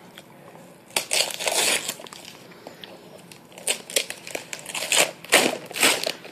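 Wrapping paper crinkling and tearing in several short bursts as a toddler's hands rip it off a present.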